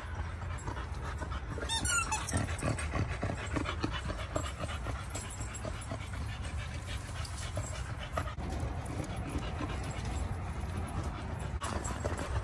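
A dog panting close by, with a brief high squeak about two seconds in and a steady low rumble underneath.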